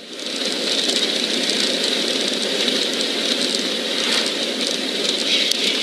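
Steady road and wind noise inside a car's cabin while it drives at highway speed.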